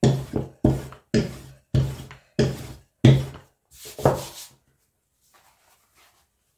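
Rolling pin worked back and forth over gözleme dough on a wooden tabletop: about seven even rolling strokes, a little under two a second. Then a softer sound as the rolled sheet is lifted off the table.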